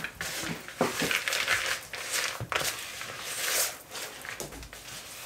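Spatula stirring and scraping thick cookie dough studded with chocolate chunks around a plastic mixing bowl, in irregular strokes with a few sharp knocks against the bowl.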